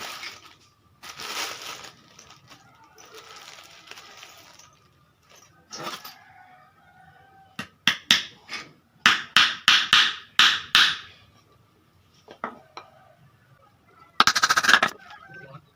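Hammer blows on wooden boards while a frame is being joined. The sharp knocks come in a quick even run of about three a second midway, with a denser flurry near the end.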